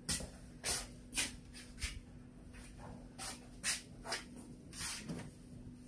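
Footsteps scuffing on a concrete floor, about two steps a second, over a faint steady hum.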